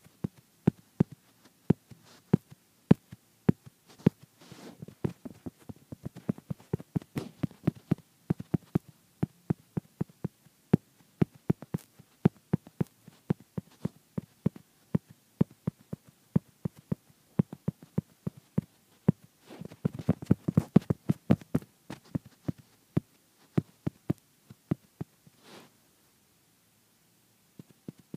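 Fingertips tapping and drumming on a hard tabletop close to the microphone: an irregular run of sharp taps, a few a second, with denser flurries about five seconds in and about twenty seconds in, and a pause of about two seconds near the end.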